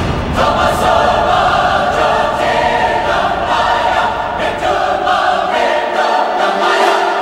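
Choral soundtrack music: a choir singing long held chords.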